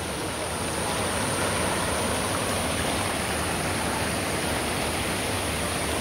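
Mountain stream rushing over rocks in small rapids: a steady, even noise of flowing water.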